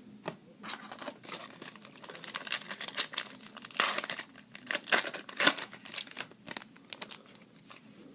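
A trading-card pack wrapper being torn open and crinkled: a run of irregular sharp crackles, loudest about four to five and a half seconds in.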